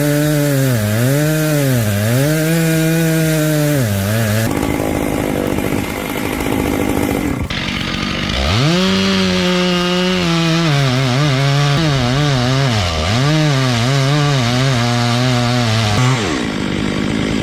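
Chainsaw cutting into wood, its engine note repeatedly sagging as the chain loads in the cut and rising again as it frees. The running stops for about four seconds in the middle and then resumes.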